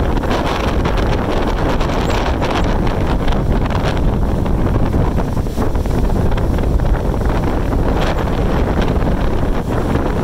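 Hurricane-force wind buffeting the microphone: a loud, steady, low rumbling blast of wind noise that gusts slightly throughout.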